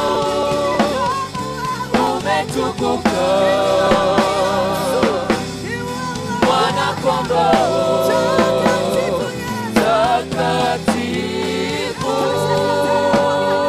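Gospel worship music: voices sing long held phrases with vibrato over a drum kit and band accompaniment.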